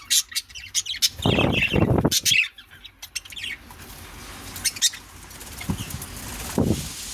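Pet budgerigars flapping their wings in flight, with short chirps. The loudest flurry comes about a second in, and it is quieter after that.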